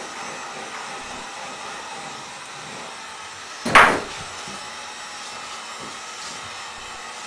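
Handheld heat gun blowing steadily. About halfway through comes a single loud, sharp knock, much louder than the gun.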